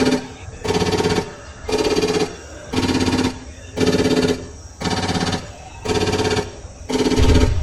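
Nerf Ultra AMP toy blaster being fired: about eight short bursts of rapid rattling with a buzzing tone, roughly one burst a second.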